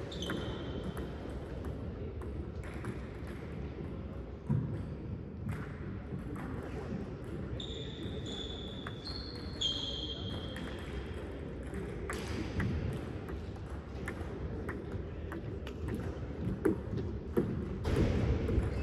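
Sounds of play on a court in a large hall: several short, high squeaks, a few thuds from a ball, and a steady background din.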